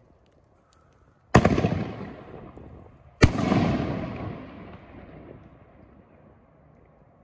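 Two loud booms from 4-inch canister shells bursting in the air, about two seconds apart. Each cracks sharply, then rolls away in a long echoing rumble.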